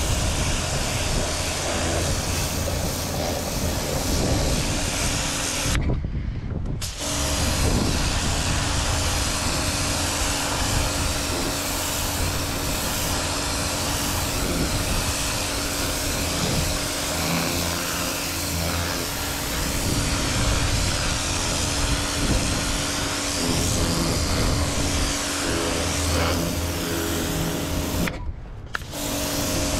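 Pressure washer spraying a jet of water onto a boat's deck, with a steady hiss of spray over the hum of the washer's pump. The spray hiss drops out briefly twice, about six seconds in and near the end.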